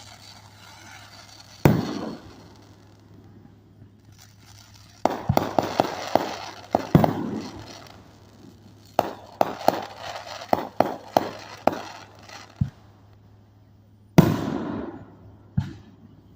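Fireworks going off in a show: a single bang about two seconds in, then two rapid volleys of sharp crackling bangs, and another loud bang near the end that fades away slowly.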